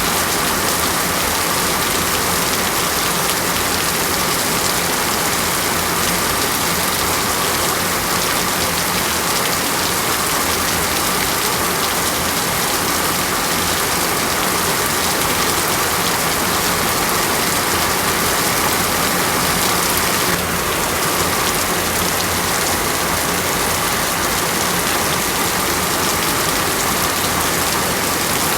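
Rain falling steadily, an even dense hiss of drops on a surface, with a slight brief dip in level about twenty seconds in.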